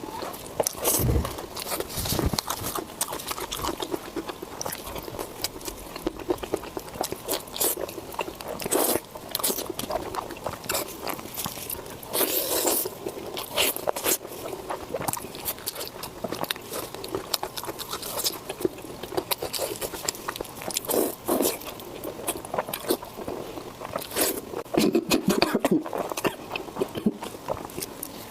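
A person eating close to the microphone: irregular crunching bites and chewing, with many short crackly clicks.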